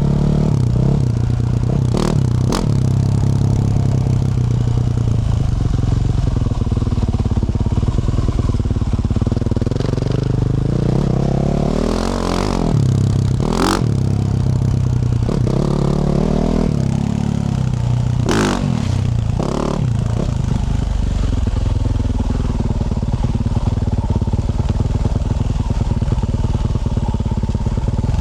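A 2024 Yamaha YZ450F's 450 cc single-cylinder four-stroke engine, through a Yoshimura RS-12 exhaust, running as the dirt bike is ridden. The revs rise and fall a few times in the middle. Sharp clacks and clatter come about two seconds in and a few more times later.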